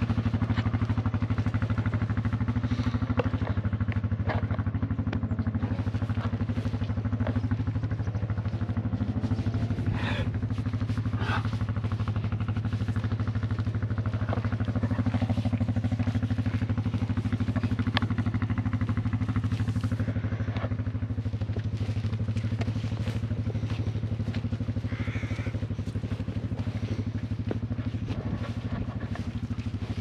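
An engine running steadily at an even speed, with scattered clicks and knocks over it.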